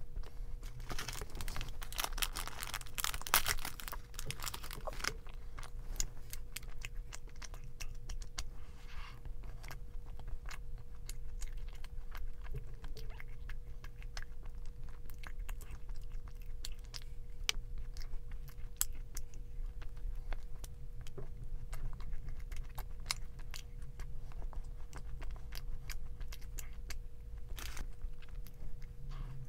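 Close-miked chewing of crunchy food, with a dense run of crunches in the first few seconds, then sparser crunching and mouth clicks. A faint steady hum lies underneath.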